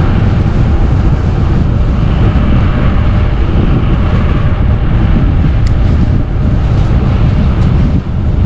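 Wind rushing over the microphone of a bicycle rider coasting down a fast mountain descent: a loud, steady buffeting roar.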